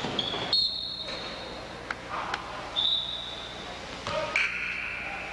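Basketball game in a gym: a few short, high-pitched tones over a steady low hum, with a couple of sharp knocks in between.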